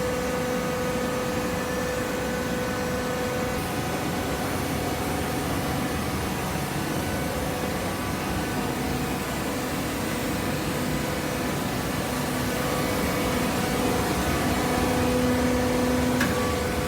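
Horizontal hydraulic waste paper baler running: a steady machine hum with a couple of fixed tones, with a short click near the end.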